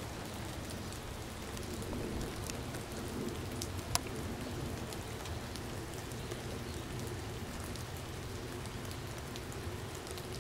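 Outdoor ambience of light rain: a steady hiss with scattered faint drop ticks, and one sharper tick about four seconds in.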